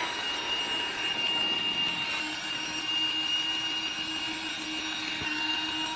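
Electric air pump running steadily as it inflates an air mattress, a constant motor whine whose pitch rises slightly near the end as the mattress firms up.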